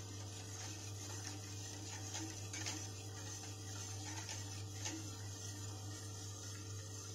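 Faint scraping and a few light taps of a utensil stirring a milk pudding mixture in a stainless steel pot, over a steady low hum.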